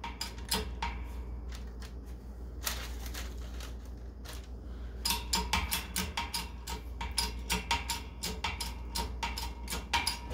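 Clicks and crackles from a homemade bottle-jack rosin press and the parchment between its heated plates as pressure is brought on, scattered at first and coming quicker, about three or four a second, from about halfway, over a steady low hum.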